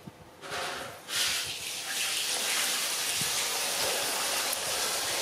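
A steady rushing hiss, like running water, starts about half a second in, grows much louder about a second in, and then holds.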